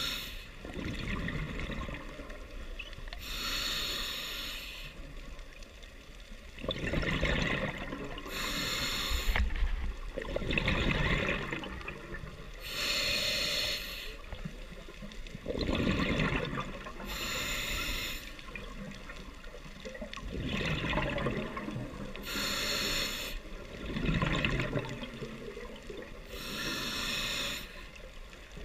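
Scuba diver breathing through a demand regulator underwater: about six breaths, each a short hissing inhale followed by a longer gurgling rush of exhaled bubbles, repeating every four to five seconds.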